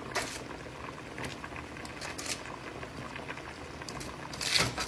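Pot of chicken-broth soup with potatoes and carrots at a rolling boil, bubbling and popping steadily. A louder splash comes near the end as a piece of roasted pumpkin goes in.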